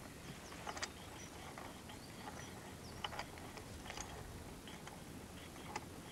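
Faint outdoor ambience: a steady hiss with scattered short clicks and a few faint high chirps.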